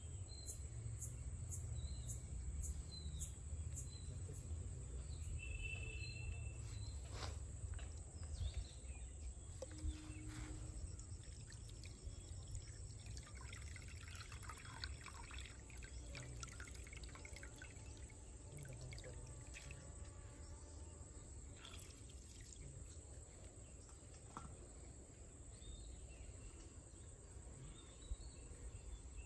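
Water splashing, trickling and being poured as freshwater snails are rubbed clean by hand in a steel plate, with small clicks of shells against the metal, over a steady low rumble. A few short bird chirps sound early on.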